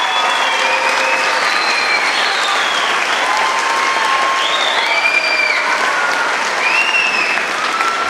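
A theatre audience and the performers on stage applauding steadily, with short high calls rising and falling over the clapping every second or so.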